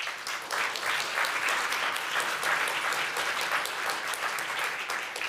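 A large audience applauding, many hands clapping together at a steady level.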